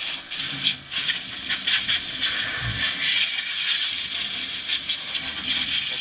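Compressed air hissing from an air-hose blow gun as it blows dust out of an electric fireplace insert, in short bursts at first and then a longer, steadier blast.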